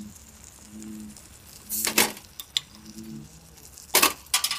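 Glass beer bottle being opened: two short, sharp bursts of noise about two seconds apart, the second as a hand works the cap.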